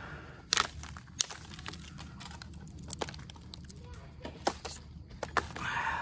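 Onondaga chert being knapped with an Ishi stick pressure flaker: scattered sharp clicks and snaps as small flakes pop off while the edge is worked in a zigzag all the way around.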